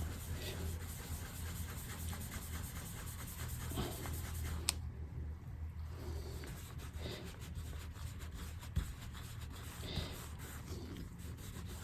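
Light scratching and rubbing at MacBook keys, working at stuck-on glue residue softened with WD-40. There is one sharp click about five seconds in, over a low steady hum.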